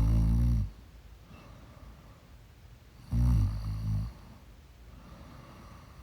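A sleeping person snoring loudly: two low snores about three seconds apart, the first dying away just under a second in, the second lasting about a second.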